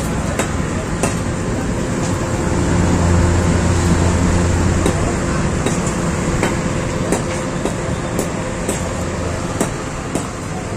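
Power Air FQD30-4 12-inch industrial exhaust fan running: a steady rush of air over the low hum of its 80 W motor, louder for a couple of seconds near the middle. Scattered sharp taps sound through it.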